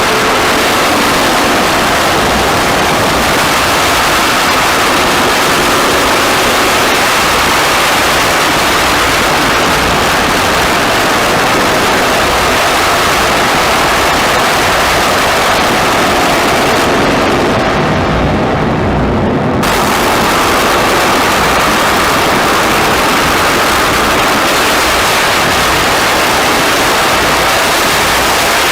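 Experimental noise track: a dense, loud wall of static hiss and rumble, unchanging in texture. About two-thirds of the way in, the top end is filtered away for a couple of seconds, then snaps back in suddenly.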